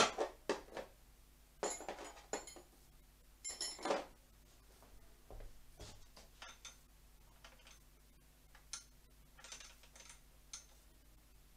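Metal spanner clinking and clicking on the throttle cable's retaining nuts as they are tightened at the handlebar. A few sharper clinks come in the first four seconds, followed by lighter, scattered ticks.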